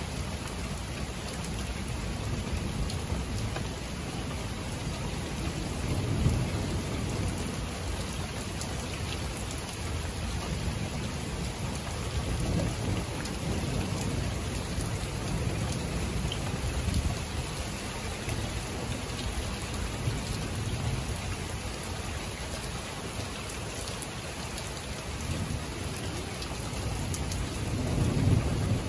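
Thunderstorm: steady rain falling, with low rolls of thunder rumbling in and out several times, the loudest near the end.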